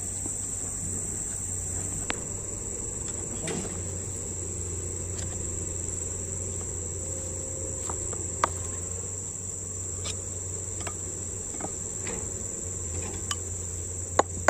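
A steady, high-pitched insect chorus with a low steady hum beneath it, broken by a few scattered sharp knocks and a quick cluster of louder knocks near the end.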